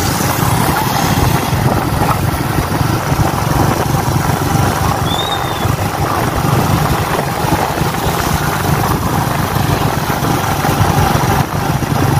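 An engine running steadily, with its rumble strongest in the low range.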